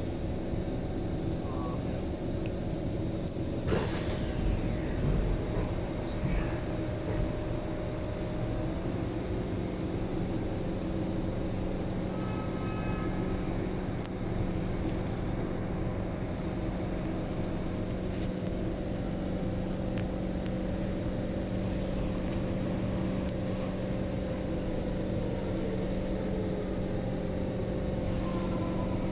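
Metro train carriage interior as the train brakes to a stop at a station, with a falling electric whine a few seconds in and a steady hum of the train's running equipment underneath. About twelve seconds in there is a short run of repeated beeps as the doors open, then the steady hum continues while the train stands at the platform.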